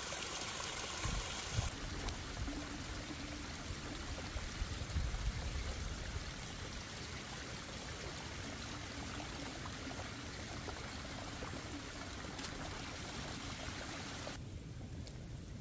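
Small rocky waterfall trickling and splashing steadily down a stone bank.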